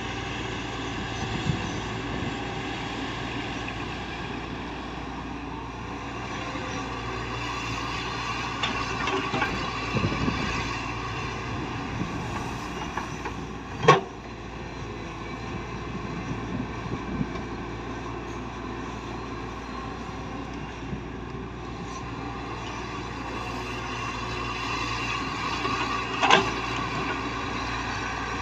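Heavy earthmoving machine's diesel engine running steadily under work, with two sharp knocks, one about halfway through and one near the end.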